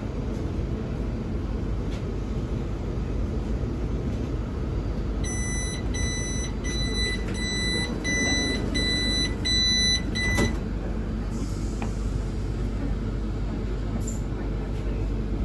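Door-closing warning beeper of a Pesa EN97 electric multiple unit: about eight evenly spaced high beeps, roughly one and a half a second, starting about five seconds in and ending with a sharp knock as the door shuts. Under it the steady low hum of the standing train.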